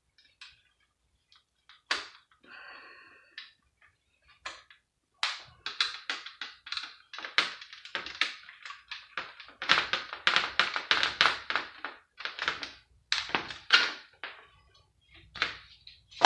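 Irregular sharp clicks, taps and knocks of hand tools on hard plastic as the PlayStation 3's cooling fan cover is pried off, coming thick and fast after the first few seconds, with a brief squeak about three seconds in.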